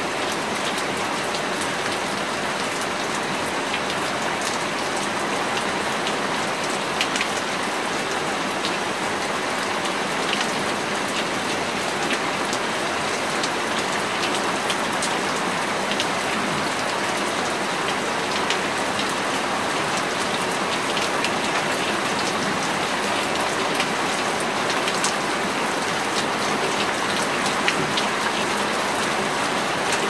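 Steady autumn rain falling, an even hiss with scattered sharp ticks of single drops striking nearby surfaces.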